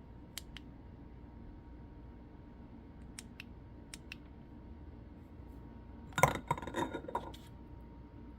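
Small hard objects being handled on a bench: a few light clicks, mostly in pairs, then about a second of louder clattering and rattling near the end.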